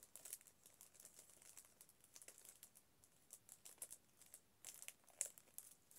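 Faint crinkling and small scattered clicks of hands handling a craft sticker sheet while peeling off self-adhesive googly eyes, with a slightly sharper click about five seconds in.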